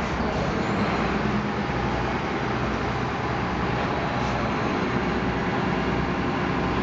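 Steady background noise: a continuous low rumble and hiss, with no distinct events.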